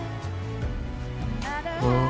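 Background music: a gliding melody line over a steady bass.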